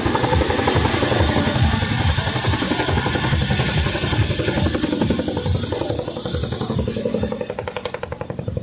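Boeing CH-47 Chinook tandem-rotor helicopter hovering low, its twin rotors beating steadily. The sound grows somewhat fainter near the end.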